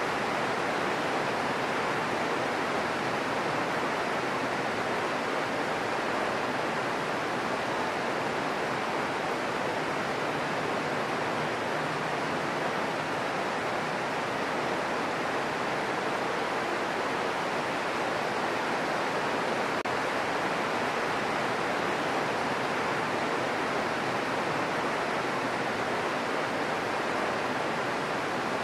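Steady rain falling, a continuous even hiss that does not change.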